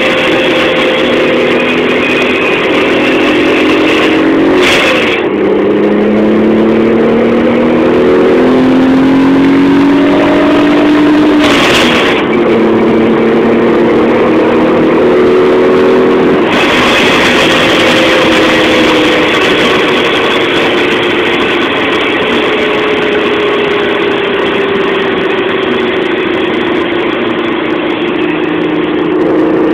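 Supercharged Renault Clio V6's 3.0-litre V6 engine heard from inside the cabin on the move. Its pitch drops sharply about five seconds in and again about twelve seconds in, as at gear changes, climbing under acceleration in between. Over the second half it falls slowly as the car slows.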